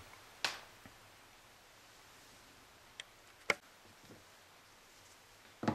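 A few small clicks and taps over quiet room tone, with the sharpest about three and a half seconds in and a louder knock just before the end.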